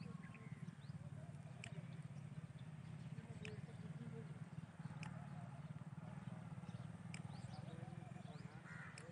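Faint outdoor field ambience: a steady low hum with a few sharp clicks spread through it and faint distant animal calls, one of them near the end.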